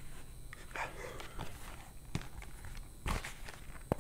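Soft rustling and a few light, irregular taps of cloth baseball caps being handled, one snapback taken off and another cap put on, the clearest taps a little after three seconds in and just before the end.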